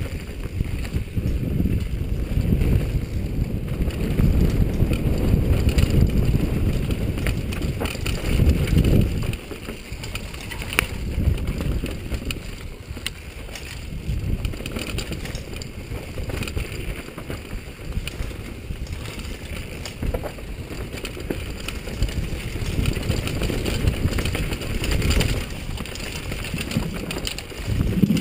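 Wind buffeting a helmet camera's microphone on a fast mountain-bike descent over a dirt trail, with the bike's rattles and knocks over rough ground. The rumble is heaviest for the first nine seconds or so, then eases.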